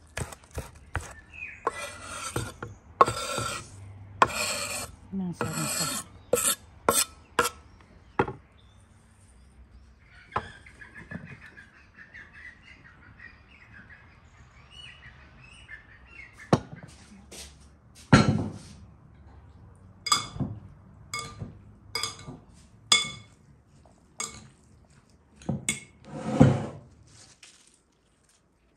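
Knife chopping green onions on a wooden cutting board, quick strokes mixed with a few scraping sweeps, for about eight seconds. Then liquid trickles from a clay jug into a glass bowl for several seconds. After that come separate knife knocks and cuts, the loudest of them about eighteen seconds in.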